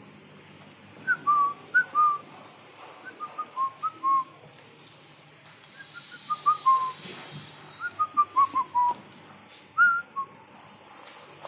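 A series of short, clear whistled notes in about five quick phrases, each phrase stepping down in pitch.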